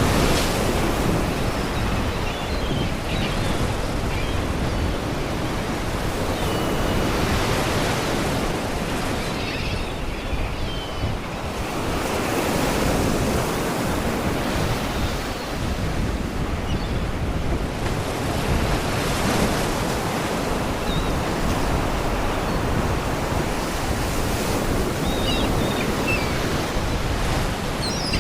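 Sea waves breaking and washing against rocks. The rush swells and eases every five or six seconds.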